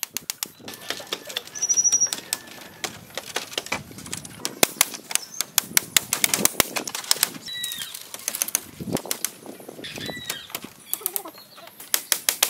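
Hammer tapping on bamboo strips of a woven frame, many sharp knocks in irregular quick runs, with a brief rushing noise about two seconds in and a few bird chirps.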